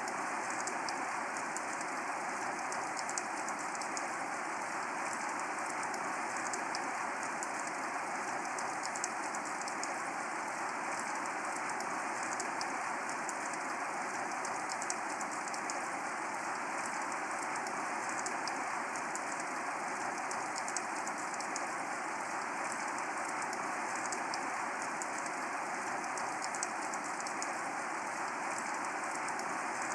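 Steady rain falling: an even, constant hiss with many small, sharp drop ticks over it.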